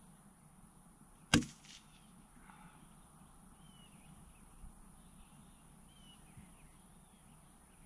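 A single .22 LR rifle shot: one sharp crack about a second in, with a short echo after it. Faint bird chirps follow over a low steady background.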